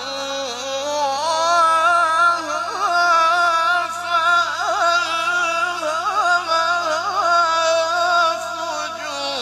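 A man's voice in melodic Quran recitation (tajweed). He sings one long phrase of held notes that waver through ornamental runs, and the phrase falls away near the end.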